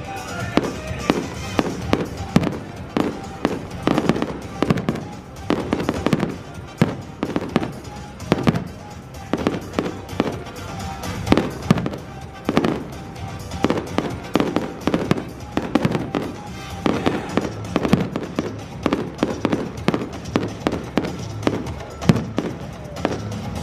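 Fireworks display: a dense, irregular run of bangs and crackles, with music playing under it.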